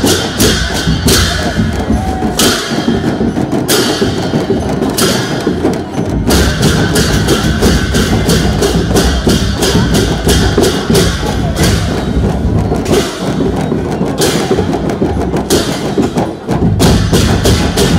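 Newar dhimay drums, large double-headed barrel drums, beaten in a fast steady beat of about four strokes a second over the din of a festival crowd.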